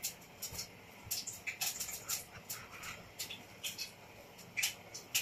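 Raw chicken drumsticks being pressed and turned by hand in a plate of dry breading: irregular, scratchy little crackles.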